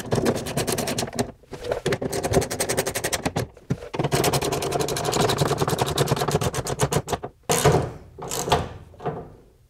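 Ratchet wrench clicking rapidly as it runs down the 10 mm bolts that hold a truck door's window track. It goes in three runs of one to three seconds with short pauses between them, then two brief bursts.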